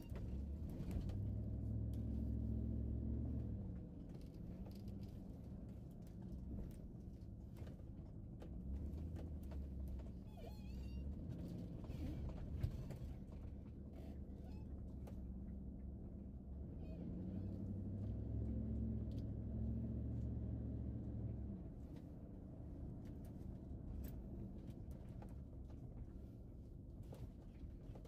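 Low rumble of a car's engine and tyres heard from inside the cabin while driving, swelling louder twice for a few seconds.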